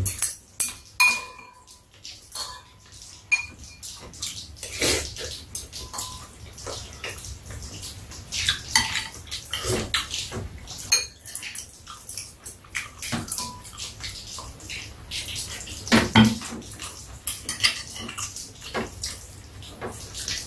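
Metal spoons and chopsticks clinking and tapping against ceramic bowls and a metal tray during a meal. The taps are scattered and irregular, and a few ring briefly.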